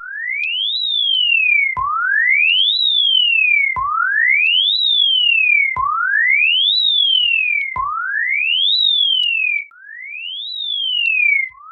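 Synthetic warning siren of the kind used for emergency alerts: a single pure tone that glides quickly up, then more slowly down, and repeats about every two seconds, six times in all. Each cycle restarts with a short click.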